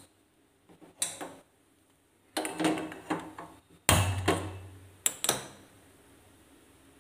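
Gas hob burner being lit with a handheld spark lighter: several sharp clicks, then the gas catching with a sudden low whoosh about four seconds in, followed by two more clicks.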